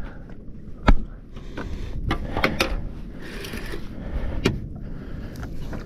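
Fishing gear being handled on a kayak during a fight with a fish: a few sharp clicks and knocks, the loudest about a second in, over a low steady hiss of water and wind.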